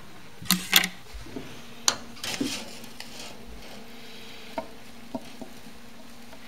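Gerbils scrabbling in wood-shaving and shredded-paper cage bedding as they tussle over a piece of pancake: short bursts of rustling and scratching about half a second in and again around two seconds in, with a sharp click between them and a few faint ticks near the end.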